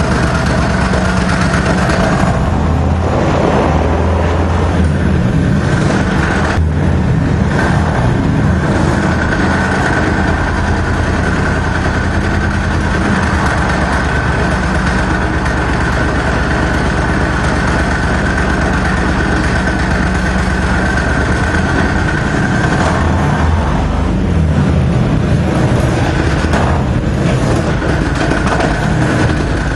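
Small engine of an Argo-based replica tank running steadily as the tank drives slowly on rubber tracks, with a steady high whine through the middle.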